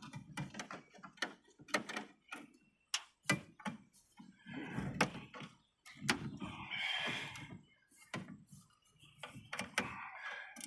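Irregular clicks, knocks and short scraping rattles of a metal computer case and its parts being handled and pulled apart by hand.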